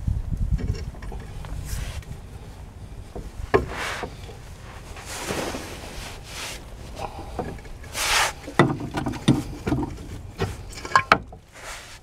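Close handling noise from hands and sleeves brushing near the microphone, with a few sharp metal clicks and knocks as front-suspension parts (steering knuckle, lower ball joint and strut) are worked into place. There are brushing swishes about five and eight seconds in, and sharp clicks around three and a half, nine and eleven seconds in.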